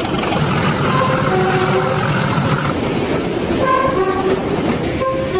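Two-tone train horn giving short high-then-low blasts three times over the rumble of a passing train. A high thin whine runs under the first blast, then gives way to one that falls slowly in pitch.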